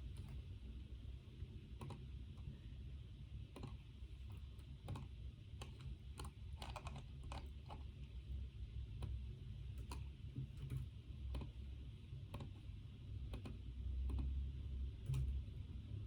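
Typing on a computer keyboard: irregular keystroke clicks in short runs with pauses between them, over a steady low hum.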